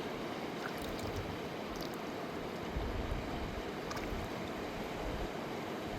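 Fast river water rushing steadily.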